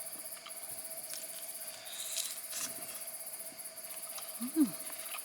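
Steady chirring of crickets and other night insects. There are a few faint clicks from chewing about two seconds in, and near the end a short hummed "mm" of enjoyment, rising and then falling in pitch.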